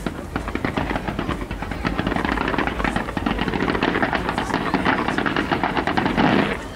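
Fireworks going off in a rapid, continuous string of crackles and pops, many a second, thickening into a denser rush of crackle just before the end.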